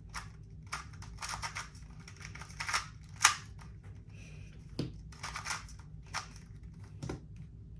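GAN 249 magnetic 2x2 speedcube being turned, its layers clicking and clacking in quick, irregular strokes, with one louder clack a little past three seconds in.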